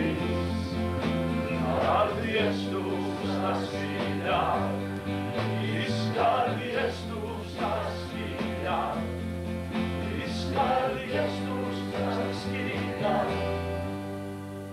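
Live acoustic band music: held bass notes and accordion chords under strummed or struck accents about every second or so, getting quieter near the end.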